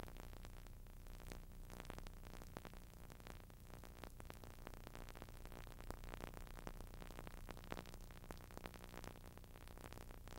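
Faint steady hiss and low hum with dense crackling clicks: background noise on a nearly silent soundtrack.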